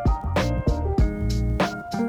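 Background music: a mellow keyboard-led instrumental with a steady drum beat.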